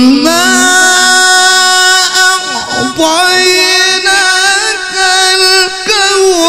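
A man's voice reciting the Quran in the melodic tilawah style into a microphone, holding long ornamented notes. The note steps up in pitch just after the start and is sustained with brief breaths between phrases.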